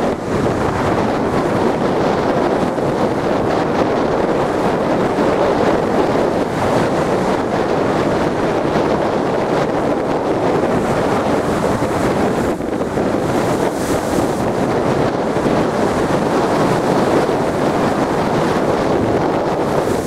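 Strong wind buffeting the microphone, steady and loud, over the rushing wash of rough surf surging against a stone sea wall.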